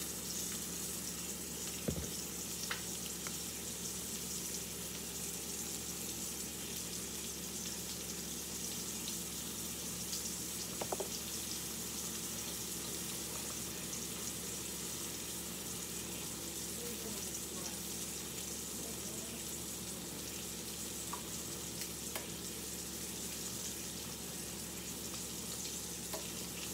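Catfish fillet searing in oil in a cast-iron skillet: a steady sizzle with an occasional small pop.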